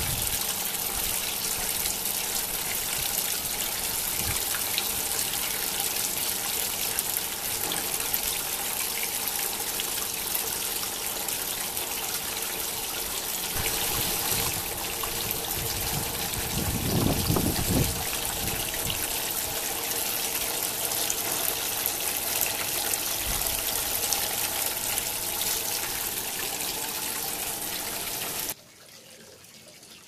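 Water from a small tiered garden waterfall splashing and trickling over its stone ledges into the basin, a steady rush of falling water. A brief low rumble comes just past the middle. Near the end the sound drops abruptly to a much quieter trickle.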